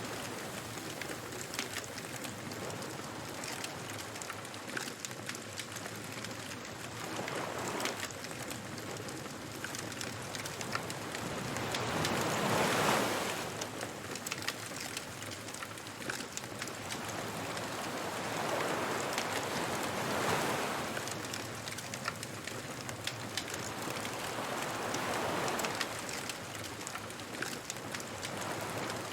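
Surf washing onto a beach in slow swells, one every five to seven seconds, the loudest about halfway through. A bonfire crackles over it with a scatter of small pops.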